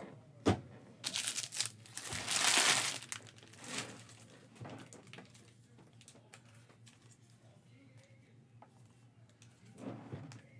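Plastic wrapping being crinkled and crumpled by hand, loudest about two to three seconds in, after a single knock about half a second in. Light handling ticks follow, with a brief rustle near the end.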